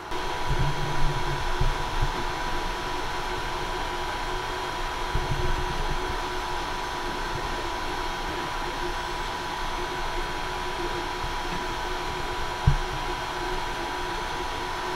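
An Ender 3 Max 3D printer running a print: a steady whir of cooling fans with several fixed whining tones. A louder low hum comes and goes in the first couple of seconds and again around five seconds in, and there is a short low thump about twelve and a half seconds in.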